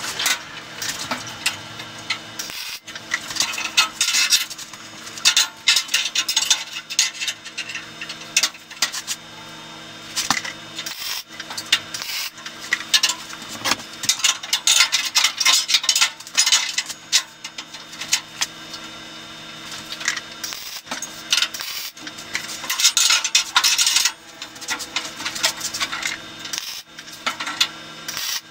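Sped-up workshop sound of steel spindles and a steel spacer block clattering on a steel fixture table, broken by short crackling bursts of MIG tack welds, over a steady machine hum.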